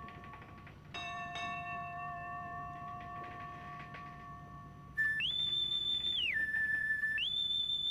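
Bell-like chime tones ringing and slowly fading, struck again about a second in. From about five seconds in comes a louder, shrill whistle that swoops up about an octave, holds, and slides back down, twice.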